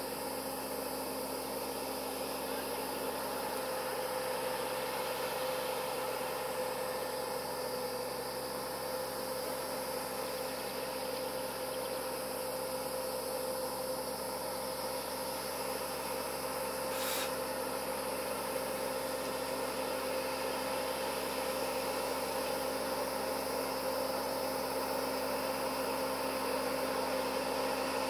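Distant road train's diesel engine running at low revs: a steady hum over a background hiss, slowly growing louder as the truck approaches.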